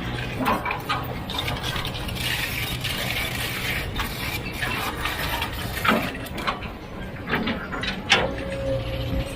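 Heavy machinery at work: a steady low engine hum with scattered sharp metallic clanks and knocks, and a rush of gritty noise about a second in that lasts a couple of seconds.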